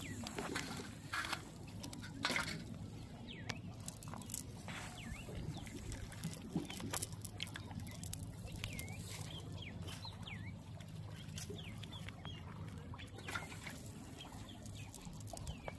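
Many short, hooked bird chirps repeat over crackling rustles and clicks from a nylon cast net being handled on grass as fish are picked out of it.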